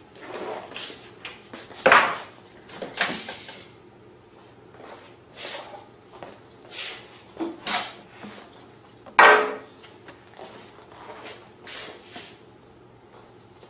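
Irregular clinks, knocks and rustles of hand tools and parts being handled, with two louder metallic clatters, one about two seconds in and one about nine seconds in.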